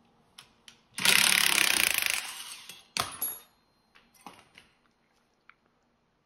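Cordless impact wrench hammering for about a second on a three-jaw puller's forcing screw, pulling the old oil drive gear off a crankshaft snout. A single metallic clunk follows, then light metal clinks as the puller and gear are handled.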